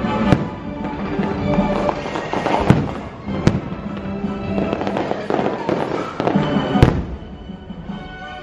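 Fireworks bursting, with sharp bangs about a third of a second in, twice around three seconds in, and the loudest one near seven seconds, over show music.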